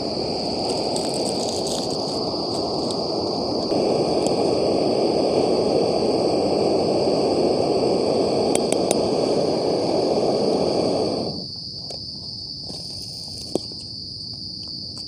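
Portable camping gas stove burner hissing steadily under a pot of cooking noodles. It grows louder a few seconds in and cuts off suddenly about eleven seconds in as the flame is shut off. Crickets chirp steadily throughout, and a light clink or two of a spoon on the pot comes near the end.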